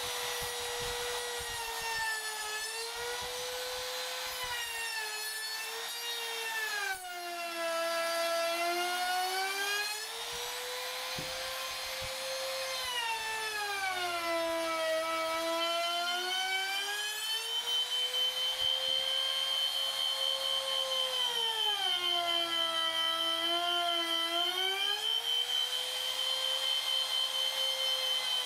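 Compact trim router running at high speed while rounding over the top of a pine spindle. Its whine drops in pitch several times as the cutter bites into the wood under load, then climbs back as it eases off. A steady high whistle joins about halfway through.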